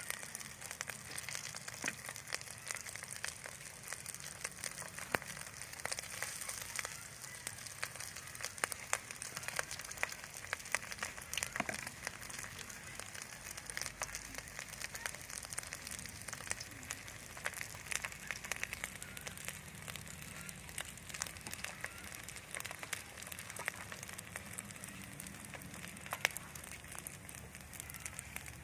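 Breaded rice balls with quail eggs deep-frying in hot oil: a steady sizzle with many sharp crackles and pops.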